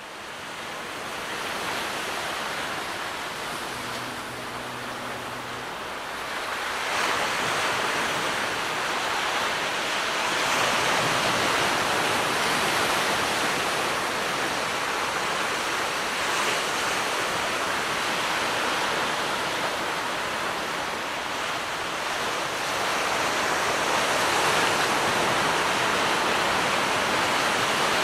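Gentle waves washing onto a beach: a steady hiss of surf that swells and eases in slow surges every few seconds.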